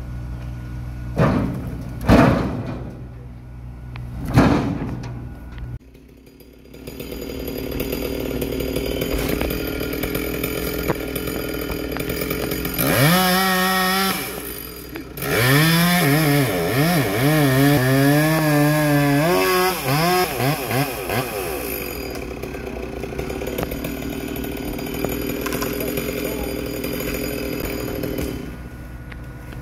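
Two-stroke chainsaw running, its revs rising and falling for several seconds about halfway through, over a steady low engine hum. A few loud thuds in the first few seconds.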